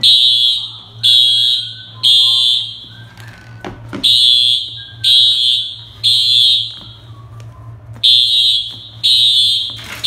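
Fire alarm sounding the temporal-three evacuation pattern: three loud, high-pitched beeps about a second apart, a pause, then the next group of three. The pattern repeats about three times.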